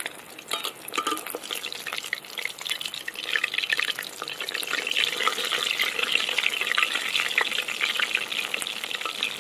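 Chicken kabiraji, a breaded chicken cutlet with a lacy coat of beaten egg, deep-frying in hot oil in a steel wok. The oil gives a crackling sizzle that grows louder and denser about three seconds in, as the egg batter fries.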